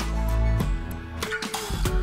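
Background music: a song with held notes, deep bass and a steady drum beat.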